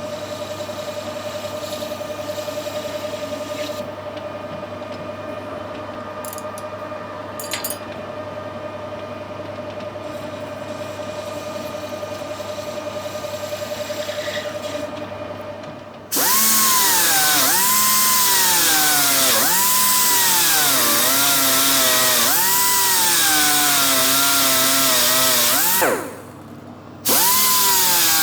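Metal lathe running steadily with a constant hum while a curve is cut by hand-feeding both handwheels at once. About sixteen seconds in, a much louder power tool starts. Its pitch dips and recovers again and again as it is pressed into the work. It stops for about a second near the end and starts again.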